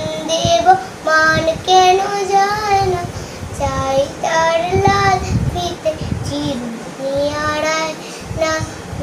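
A young boy singing a song in long held notes with short breaks, accompanying himself on a harmonium.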